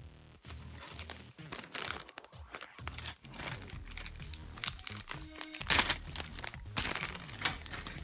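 Plastic packaging bag crinkling as it is handled, in irregular rustles with one loud crunch about two thirds of the way through, over background music.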